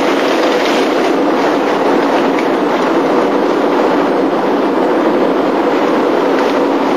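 Pan of seafood sizzling steadily as the cognac used to deglaze it cooks off, a dense, even crackle.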